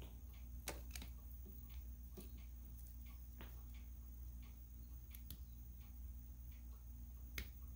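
Faint, scattered clicks and light taps from hands handling a wire against a metal aviation connector held in a vise while soldering, over a steady low hum.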